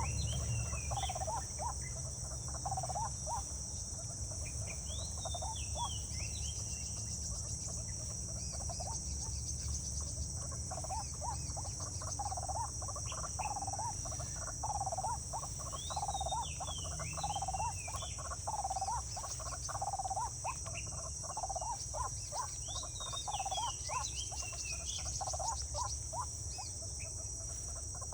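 Outdoor nature ambience: a steady high-pitched insect chorus, with bird calls in short swooping phrases several times and a lower call repeating about once a second. A steady low rumble sits underneath.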